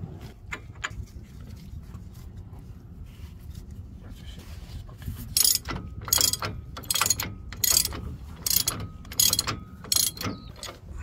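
Large ratchet wrench clicking as it runs a new hub nut down onto the axle. The clicking comes in a string of back strokes, about one every 0.7 seconds, starting about five seconds in.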